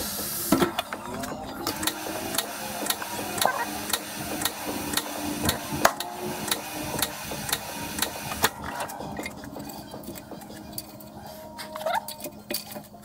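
Tire being mounted and inflated on a tire changer. Regular mechanical clicking runs at about two a second with short rubbery squeaks over a steady low hum, then the clicking fades out after about eight seconds.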